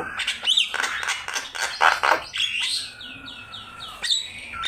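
Javan myna (jalak kebo) singing a varied, chattering song: harsh rasping notes mixed with rising whistles, a quick run of about five short falling whistles past the middle, and a held whistle toward the end.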